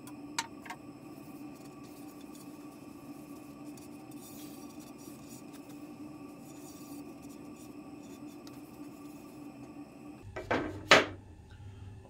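Steady low hum with a few faint steady tones, broken by two light clicks near the start. About ten seconds in the background changes and a loud, brief noise follows.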